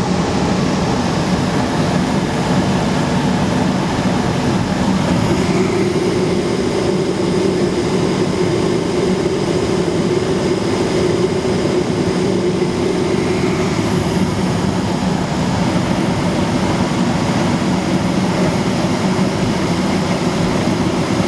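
Coleman high-efficiency gas furnace running steadily with its burners lit: a constant rumble, joined by an extra hum from about five seconds in until about fourteen seconds.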